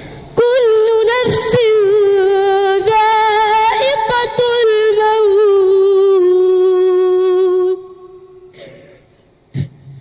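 A child's high voice in melodic Quran recitation, drawing out one long ornamented phrase whose pitch winds up and down before settling on a long held note that ends suddenly about three-quarters through. A quick breath in follows near the end.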